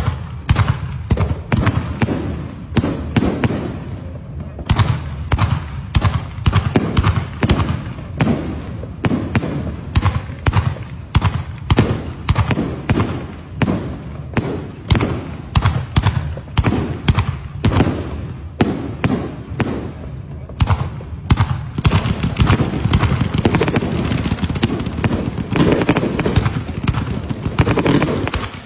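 Fireworks display: a rapid string of aerial shell launches and bursts, several bangs a second. About two-thirds of the way in the firing grows denser, with a steady hiss beneath the bangs.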